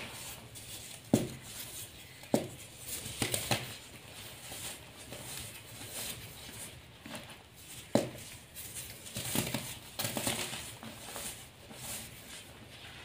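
Yellow-dyed gym chalk powder crunching and rustling as gloved hands squeeze and sift it, with a few sharper clicks of crumbling lumps.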